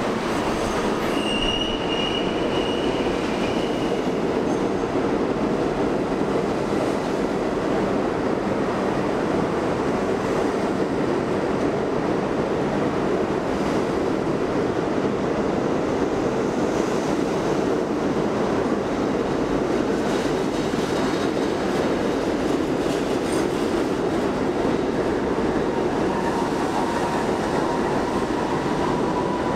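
Budd R32 subway train running along the platform track with a steady rumble of wheels on rail. A brief high wheel squeal comes in the first few seconds, and a rising whine near the end as the train pulls away.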